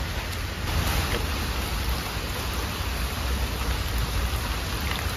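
Steady outdoor hiss with a low rumble underneath, with no distinct events.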